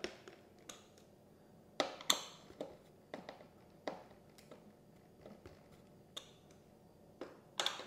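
Light taps and clicks, about a dozen at uneven intervals, with short brushing scrapes about two seconds in and near the end: hands and a screwdriver handling a foam RC jet's airframe.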